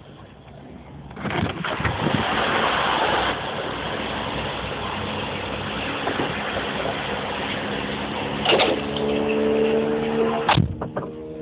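Petrol pump nozzle filling a car's fuel tank: a loud rushing of fuel starts about a second in and runs steadily, broken by a sharp click, after which a steady hum remains, with another sharp click near the end.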